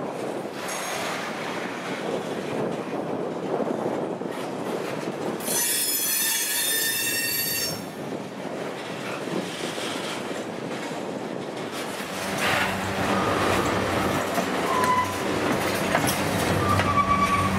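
Canadian National freight train rolling past, with steady wheel-on-rail noise. About five and a half seconds in, a high-pitched wheel squeal sounds for about two seconds. From about twelve seconds in, a low steady drone joins.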